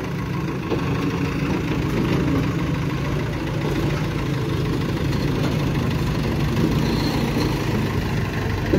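JCB 3DX backhoe loader's diesel engine running steadily as the machine drives down into an excavated basement.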